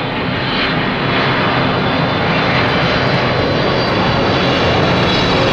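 Jet airliner passing low overhead: a very loud, steady rushing engine noise that grows a little over the first second.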